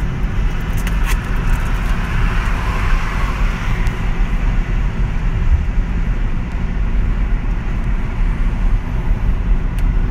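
Steady low rumble of a car heard from inside its cabin. Between about one and four seconds in there is a rustle and a few light clicks as a gift package is handled on the back seat.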